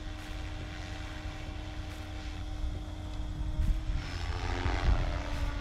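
SAB Goblin 380 electric RC helicopter in flight: a steady whine from its motor and spinning rotors, swelling into a louder whoosh of rotor noise about four to five seconds in as it manoeuvres.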